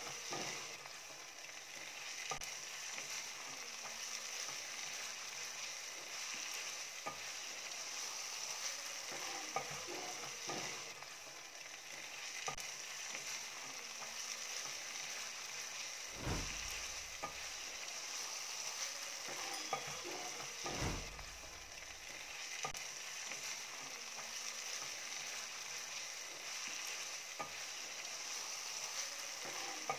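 Food sizzling in a frying pan: a steady frying hiss with scattered small clicks and crackles, and two dull bumps a little past halfway.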